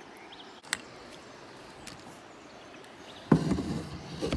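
Steady hiss of moving river water with a single sharp click about a second in, then, near the end, a sudden burst of knocking and rustling as gear and the caught fish are handled against the plastic kayak.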